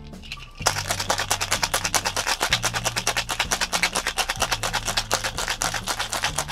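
Ice rattling inside a metal cocktail shaker shaken hard, a fast, even rattle that starts about half a second in and keeps going steadily.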